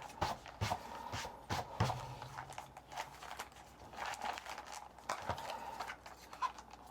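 Trading-card packaging being handled and opened: rustling and crinkling with scattered taps and clicks.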